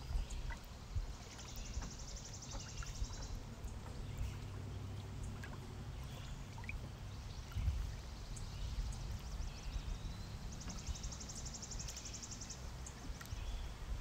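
Outdoor ambience: a steady low rumble with small scattered ticks, and twice a high, rapid trill of about two seconds, about a second in and again near the end.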